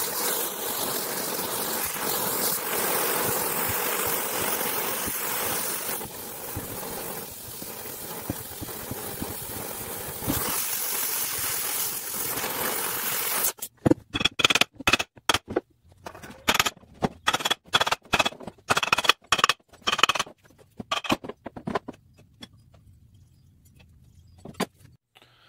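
Oxy-fuel cutting torch hissing steadily while it heats the old pulley's hub on the shaft. About halfway through, the torch gives way to a long run of sharp hammer blows on metal, several a second, each ringing, which stop a few seconds before the end.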